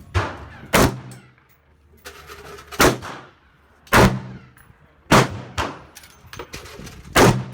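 Gunshots fired one at a time, about six or seven sharp cracks at uneven intervals of roughly a second, each trailing off in a short echo.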